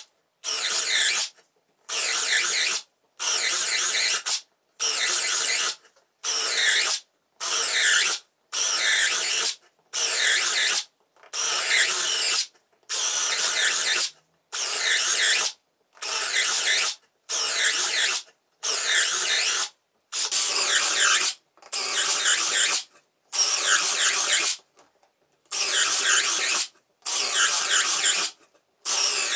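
Parkside Performance 12V brushless cordless drill driver in second gear boring hole after hole through wood, about one hole a second. Each hole is a short burst of bit-cutting noise with the motor running, followed by a brief silent gap.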